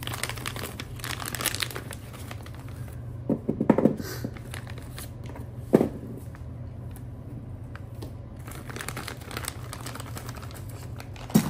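Plastic packaging bag crinkling and rustling as it is opened and new red polyurethane bushings are taken out, with a few short knocks about three and a half seconds and six seconds in as the bushings are set down on the table.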